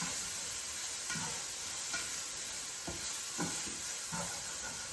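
Mushrooms sizzling in olive oil in a frying pan, with a utensil stirring and scraping against the pan several times.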